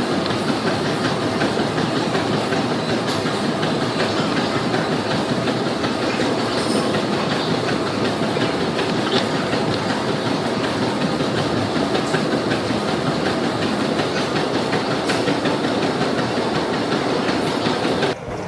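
Treadmill in use: the running belt and motor make a steady loud noise, with a quick rhythmic thudding of footfalls on the deck.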